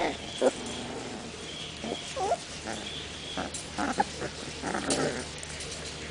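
A litter of young puppies giving short, scattered whimpers and small growls, with a wavering whine about two seconds in.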